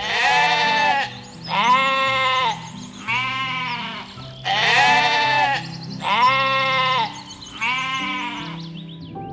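An animal calling six times over background music, in two runs of three. Each call lasts about a second and has a wavering, arching pitch.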